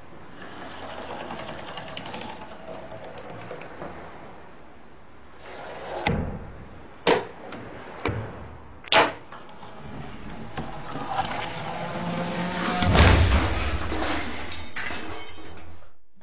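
Fingerboard clacking as its deck and wheels strike a box: four sharp clacks about a second apart, then a louder low rumble, over faint background music.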